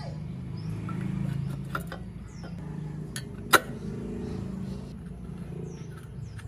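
Steady low hum with scattered light clicks and one sharp knock about three and a half seconds in.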